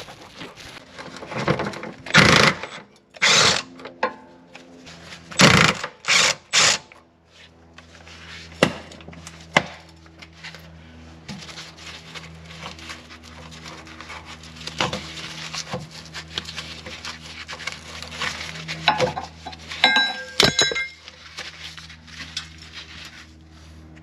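Cordless impact wrench run in several short bursts in the first seven seconds, undoing the bolts of a rear sway bar bushing bracket. After that come scattered clicks and a cluster of metallic clinks near the end as the bracket and old rubber bushing are worked off the bar, over a low steady hum.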